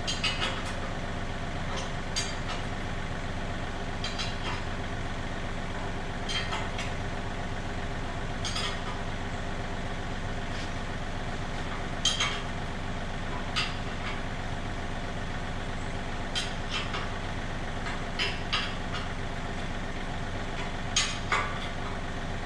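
Engine idling steadily, with a dozen or so short sharp clicks or knocks at irregular intervals over it.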